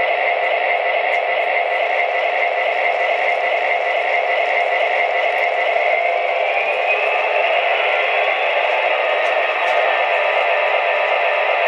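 Lionel Conrail SD60 model locomotive's RailSounds diesel engine sound, a steady, slightly hissy idling rumble from its built-in speaker. It rises in pitch about six seconds in.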